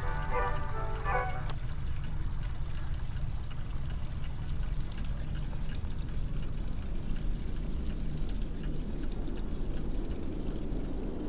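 Water running steadily from a kitchen tap into the sink. A few held music notes fade out about a second and a half in.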